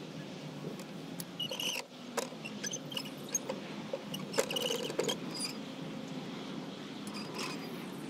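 Hand-cranked hive lifter raising the heavy, honey-filled upper boxes of a hive: scattered clicks and knocks of the pulley and lifting arms, with a few short squeaks, about a second and a half in and again near the middle, from the sliding carriage, which the beekeeper thinks needs a little grease to slide better.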